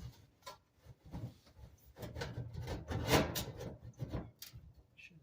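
Clothes dryer parts being handled and fitted back into the cabinet: irregular knocks, clicks and scraping of metal, busiest and loudest in the middle.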